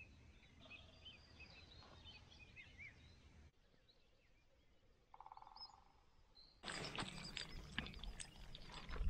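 Small birds chirping faintly in short rising calls by the water. About seven seconds in, louder handling noise starts, with rustles and knocks.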